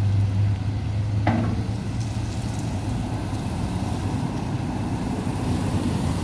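Demolition excavator's diesel engine running steadily with a low drone, and one short knock a little over a second in.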